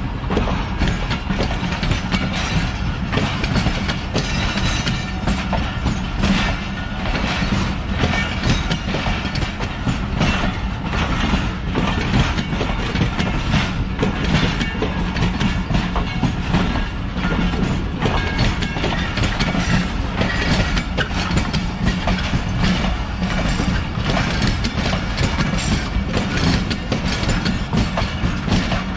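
Passenger train rolling past, its wheels clacking steadily over rail joints and points, with a steady low hum underneath.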